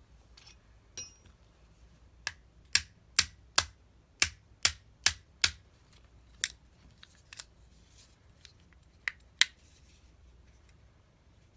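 A quick run of about nine sharp clicks, roughly two a second, followed by a few scattered single clicks.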